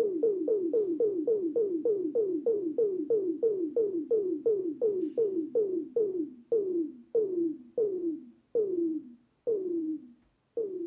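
Behringer Crave analog synthesizer sequencer playing a run of repeated notes, each sliding down in pitch. The notes start at about five a second and slow steadily to about one a second.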